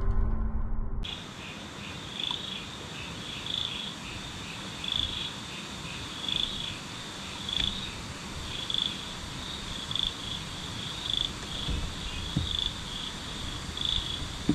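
A night-time chorus of insects, with a high chirping call repeated about every second and a quarter over a steady high hiss. The tail of a piece of music cuts off about a second in.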